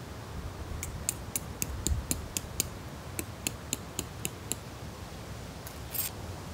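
A quick run of about a dozen small, sharp clicks, a few a second, as tarp stakes and pitching gear are handled on gravel, followed by a short rustle near the end.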